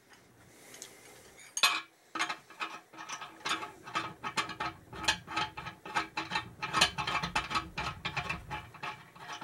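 Rapid, irregular metallic clicks and clinks from a steel slide hammer being handled and fitted onto a blind bearing puller seated in a motorcycle swingarm's pivot bearing. The clicking starts a little over a second in and keeps going.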